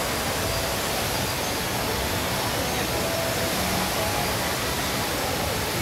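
Steady, even rush of the HSBC Rain Vortex, a large indoor waterfall pouring as a thick column of water from an opening in the glass roof.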